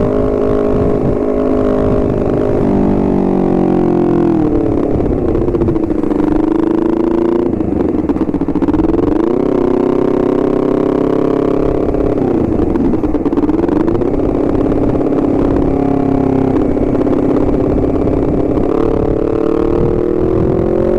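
Honda CBR250RR parallel-twin engine running under way, its pitch falling and rising again several times as the rider rolls off and opens the throttle.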